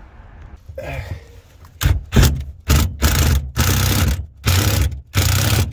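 Cordless screw gun (drill) driving a screw into steel framing in short trigger bursts, about seven stop-start runs of the motor beginning about two seconds in.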